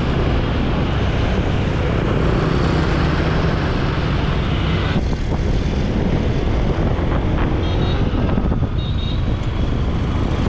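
Motor scooter being ridden through city traffic: steady engine, wind and road noise at speed.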